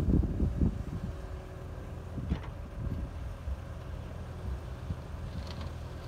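Diesel engines of an excavator and a tipping dump truck running with a steady low rumble. A clatter of falling soil and knocks dies away within the first second, and there is one sharp knock about two seconds in.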